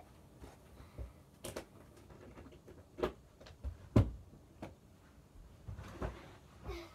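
A person rummaging and handling objects: scattered light knocks and clicks, the loudest about four seconds in.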